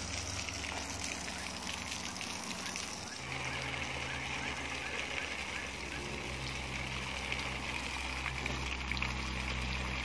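Water from a garden hose splashing onto the rocks and soil at the base of a potted plant, a steady wash of noise. About three seconds in, a steady low hum joins it.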